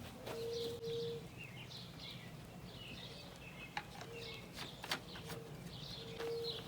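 Birds chirping: many short, high, falling chirps repeated throughout, with a low, steady hooting note that comes and goes several times. A few faint sharp clicks are heard under them.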